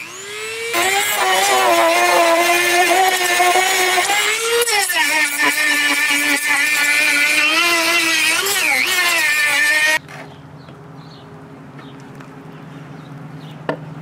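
Dremel rotary tool spinning up to a high whine and grinding the saw-cut edge of a split log, to smooth the saw-blade marks so the two halves fit tightly. Its pitch sags as it bites into the wood about five seconds in. It stops abruptly about ten seconds in, leaving a fainter low hum.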